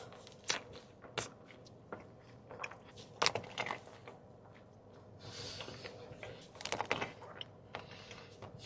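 Faint chewing and small mouth clicks as someone eats a chocolate dessert, in scattered short bursts with a soft rustle just after the middle.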